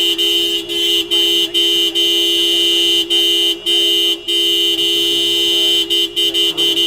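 Car horn honking repeatedly in long, near-continuous blasts, broken by many brief gaps, with a quicker run of short toots near the end.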